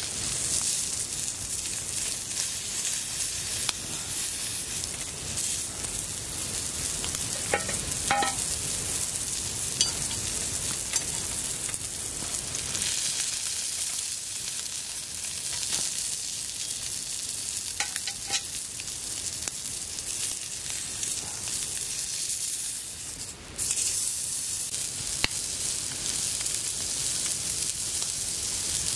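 Hamburg steak patty sizzling steadily on a thick 4.5 mm iron griddle over a wood fire, with a few light scrapes of the metal tongs and turner against the plate.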